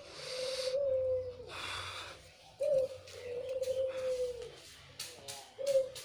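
White domestic dove (puter, the red-eyed white ringneck dove) cooing: long drawn-out coos, each swelling up briefly, held on one note and sagging at the end, one after another about every two and a half seconds, the third starting near the end.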